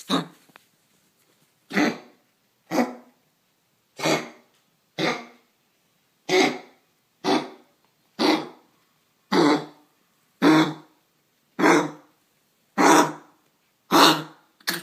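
A sick pet coughing over and over in a long fit, about a dozen hard coughs roughly a second apart. The owner treats the cough as a sore throat.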